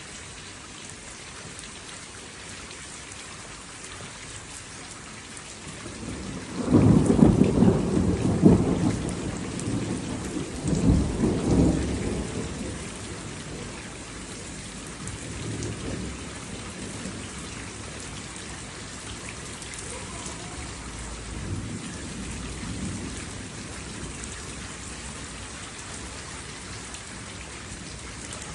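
Steady rain falling, with thunder: a loud rolling thunderclap about a quarter of the way in that rumbles for several seconds, then fainter distant rumbles later on.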